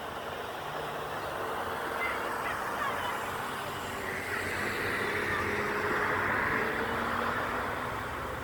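A motor vehicle running steadily, with a low engine hum under road noise that swells a little in the middle.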